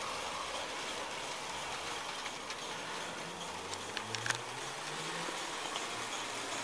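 Gauge 3 model 14xx tank locomotive and coal wagons running on garden track with a steady hiss, and a few sharp clicks about four seconds in.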